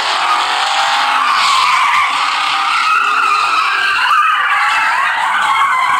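Car tyres screeching in long, wavering squeals as cars skid and slide sideways, with engines running under them.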